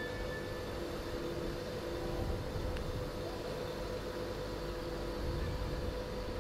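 Tyne and Wear Metro Class 555 electric train standing at the platform with its onboard equipment running: a steady hum with two steady tones over a low rumble.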